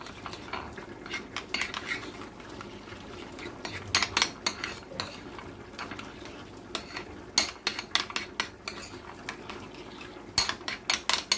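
Metal fork clinking and scraping against a small ceramic bowl while whisking a thick sauce, in runs of quick taps, the loudest about four seconds in, around seven to eight seconds, and near the end.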